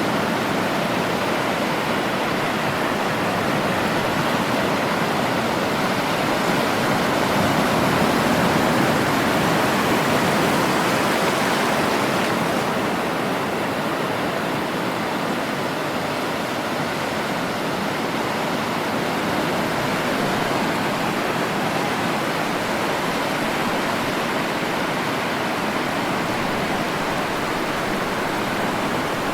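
Sea surf washing onto the shore as a continuous rush of water, swelling slightly in the first half and easing a little about twelve seconds in.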